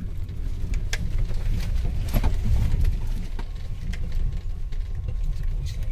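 Mahindra Thar 4x4 driving over a rough gravel and stone riverbed track, heard from inside the cabin: a steady low rumble of engine and tyres, with a couple of sharp knocks and rattles from the bumpy surface about one and two seconds in.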